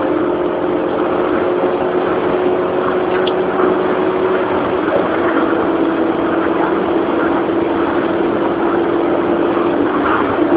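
Car engine running at a steady pitch, with a continuous hum and road or cabin noise.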